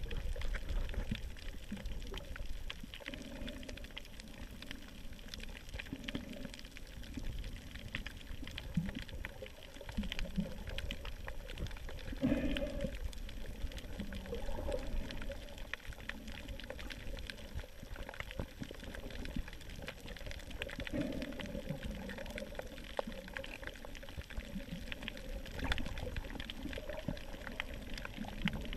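Underwater sound heard through a GoPro's waterproof housing: muffled gurgling and sloshing of moving water, with scattered faint clicks.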